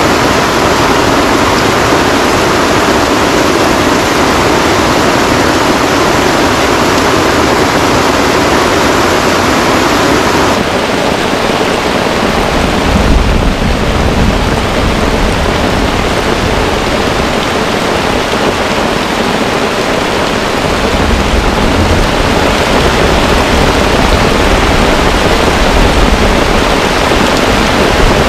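Heavy rain pouring down as a loud, dense, steady hiss. From about twelve seconds in a low rumble joins it and comes and goes.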